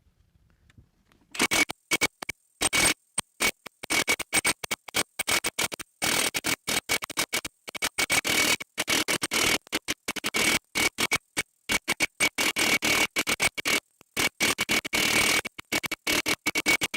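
Milwaukee M18 FUEL 1-inch cordless impact wrench hammering on a badly rusted nut. It starts about a second and a half in and runs in many short bursts with quick breaks, a steady high whine running through it. The nut does not break loose.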